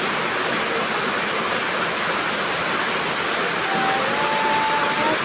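Heavy rain pouring steadily, a dense even hiss. Near the end a thin, drawn-out tone rises slightly over it.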